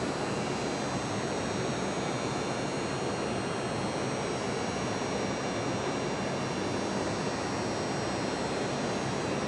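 Steady rushing background noise of a large hangar, even and unchanging, with no engine running.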